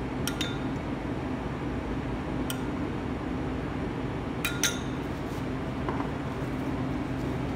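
Metal spoons clinking against ceramic bowls and a plate: a few sharp clinks, two of them close together about four and a half seconds in, over a steady low machine hum.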